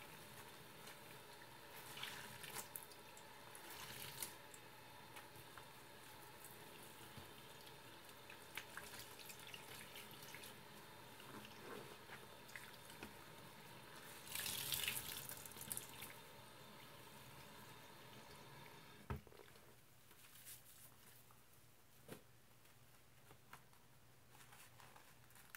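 Faint thin stream of tap water running into a bathroom sink, with a few short splashy bursts, the loudest about 15 s in, as a wet sponge is wiped around the basin. About 19 s in there is a click and the running water stops as the tap is turned off.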